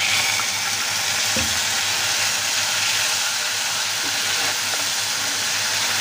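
Ginger-garlic paste and spices in hot mustard oil sizzling hard, the oil spitting from the splash of water just poured in, with a steel spatula stirring through it. A single low knock about a second and a half in.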